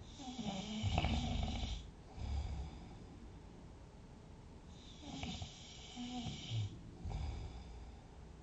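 A sleeping person snoring: two snoring breaths about five seconds apart, each a snore of about a second and a half followed by a shorter one.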